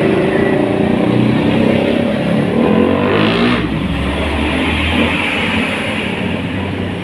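Road traffic passing close by: motorcycle engines with shifting pitch, then a Hino FM 260 dump truck's diesel engine going past at about three and a half to five and a half seconds in, with a deep engine note, before the sound eases off near the end.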